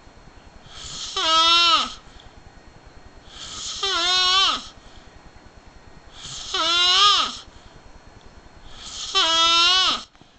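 Snoring: four loud, drawn-out snores about two and a half seconds apart, each with a clear, almost voice-like pitch that drops off sharply at the end.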